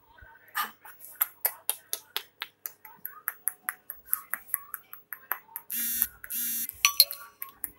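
A quick run of sharp clicks, about four a second, such as a person makes to call a puppy, then two short rasping sounds a little past the middle and one louder click after them.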